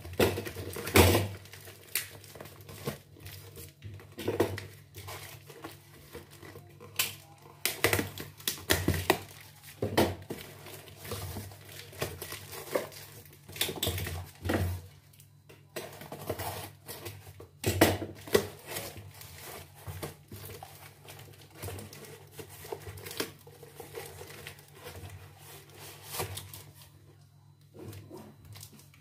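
Cardboard parcel being unwrapped by hand: packing tape peeled and torn off, cardboard flaps and wrapping crinkling and rustling in irregular bursts, with a low steady hum underneath.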